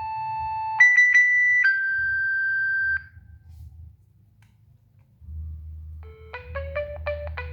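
Nokia 6585i polyphonic ringtones played through the phone's speaker. One ringtone ends on a few long held synth notes. After a pause of about two seconds, a faint hum comes in and the next ringtone starts near the end with quick, short notes.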